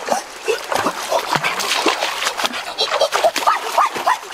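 Hands splashing and churning the water of a shallow rocky stream, with a quick run of slaps and bubbly plinks and gurgles from the stirred-up water.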